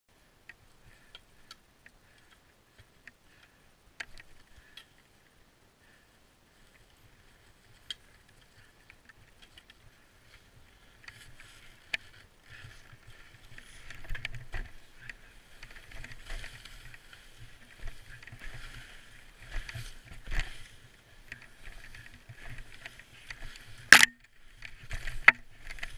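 Skis sliding and turning through deep powder snow, an uneven rushing hiss with frequent knocks and brushing, starting about eleven seconds in. Before that only scattered light clicks from gloves and gear being handled, and a sharp knock about a second before the end is the loudest sound.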